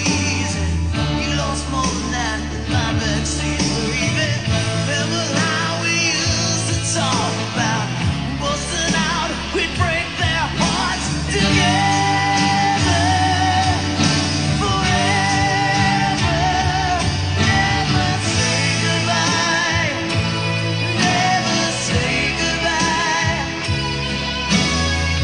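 A song: a sung melody with vibrato over a Breedlove 12-string guitar and a steady bass line.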